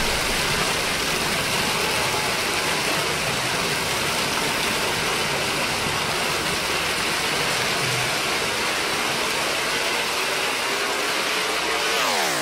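Electronic sound-design noise from the show soundtrack over a PA: a steady, dense wash of noise with no beat or melody. Near the end a falling sweep leads into the next musical section.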